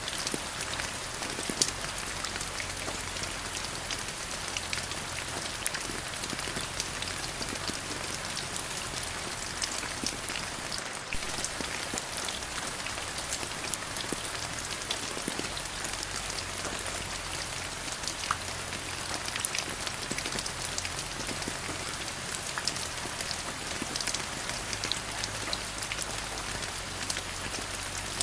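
Steady rain falling on surfaces: a continuous hiss dotted with many close, sharp drop impacts.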